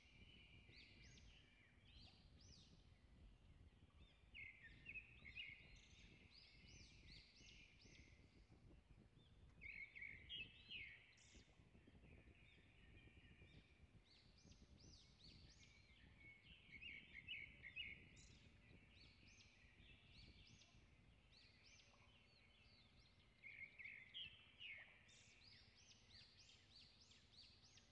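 Faint birdsong: short chirping phrases that come in bursts about every six or seven seconds, over a low outdoor rumble.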